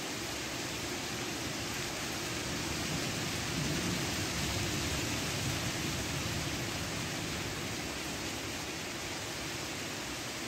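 Steady hiss of rain in a thunderstorm, with a low rumble of thunder swelling about three seconds in and fading by about seven seconds.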